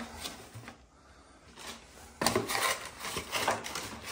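Hand rummaging in a small cardboard box of tap fittings: cardboard and tissue paper rustling and scraping. It is nearly quiet at first, and the handling starts about two seconds in.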